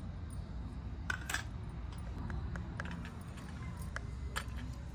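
A few light clinks and taps of small objects being handled, the clearest a quick pair about a second in and another near the end, over a low steady rumble.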